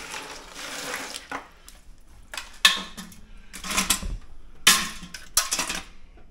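Hands rummaging through ice in a cooler, then live blue crabs dropped one at a time into a metal CanCooker steamer pot, clattering against it about four times.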